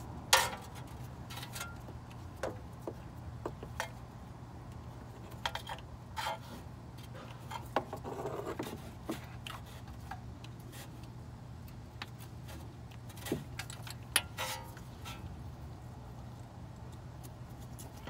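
Scattered light clicks and rattles of a new brake pad wear sensor and its wire being clipped in and routed along a BMW rear brake caliper by a gloved hand, over a steady low hum. The sharpest clicks come just after the start and about 14 seconds in.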